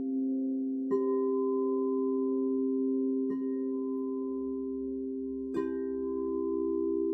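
Singing bowls ringing in a sustained, layered chord of several steady tones, struck three times, each strike adding a fresh bright ring.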